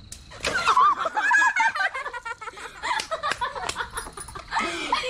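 Loud, high-pitched laughter that breaks out just after a water balloon bursts over a girl's head, with a single sharp snap at the very start.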